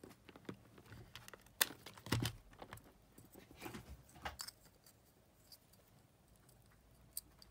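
Scattered small plastic clicks and taps from the opened casing and thin button board of a Sony wired remote control being handled in the fingers, most of them in the first half, with one more click near the end.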